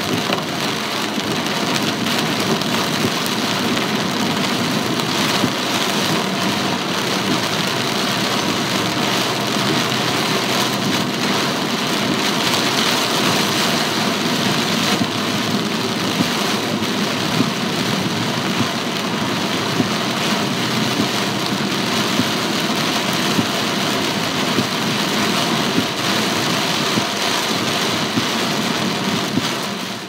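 Heavy typhoon rain on a moving car, heard from inside the cabin: a dense, steady hiss of rain on the roof and windscreen and tyres on the wet road, with the engine running underneath.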